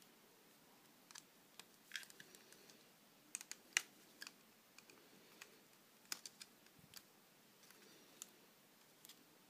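Faint, scattered plastic clicks and taps from a clear plastic rubber-band loom and its pegs being handled as the rubber-band figure is worked off it. The clicks come irregularly, about a dozen, the sharpest a little under four seconds in.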